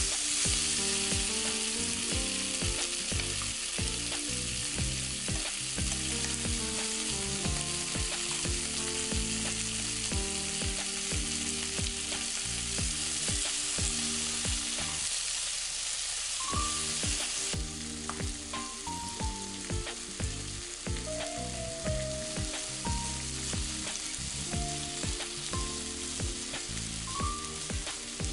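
Chicken thigh pieces and vegetables sizzling in oil in a frying pan, with short knocks as tongs turn them against the pan. The sizzle eases a little about two-thirds of the way through.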